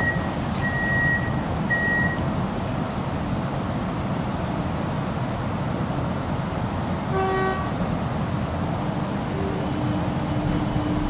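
Cabin of an X'trapolis 100 electric train standing at a platform, with a steady background hum. Three short high beeps come in the first two seconds, and a brief horn-like tone about seven seconds in. A steady low hum from the train's electric drive sets in near the end as it gets ready to pull away.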